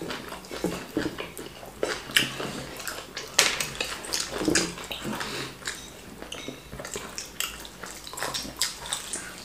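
Close-up eating sounds: people chewing and swallowing wheat fufu with ogbono soup, with wet smacking mouth noises and a run of short, irregular clicks and smacks.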